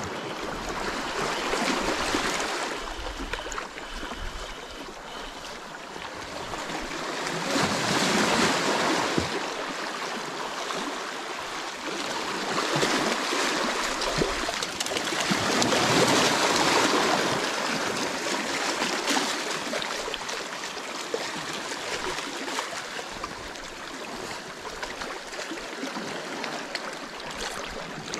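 Sea water washing in and draining back over shoreline rocks, a rushing wash that swells and fades several times, loudest about eight and again about sixteen seconds in.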